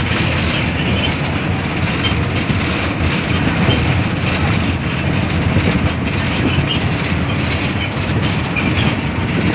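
Steady road noise of a vehicle driving along a paved road, heard from inside through the open side window: a continuous rumble of tyres and engine with rushing air.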